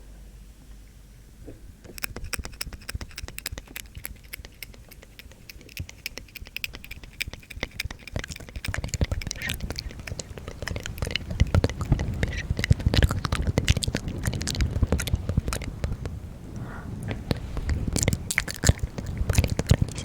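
Close-up ASMR trigger sounds right at the microphone: dense, rapid clicking and crackling that starts about two seconds in. From about eight seconds in it is joined by a heavier low rubbing rumble.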